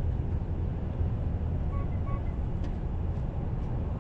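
Steady low outdoor rumble with two short, high electronic beeps close together about two seconds in, followed by a few faint clicks.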